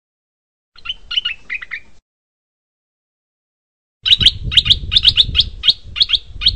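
Stripe-throated bulbul song: a short phrase of quick chirpy notes about a second in, then after a pause a faster run of sharp repeated notes with a low rumble beneath them. The phrases start and stop abruptly, as in a recording played to call birds in.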